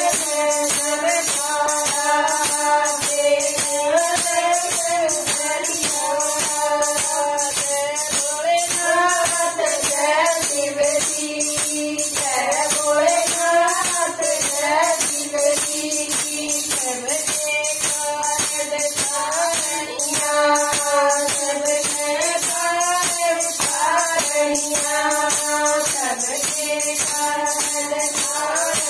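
Group of women singing a Haryanvi bhajan to Shiva, a folk devotional song with a rising and falling melody, kept in time by a steady percussion beat of about two strokes a second.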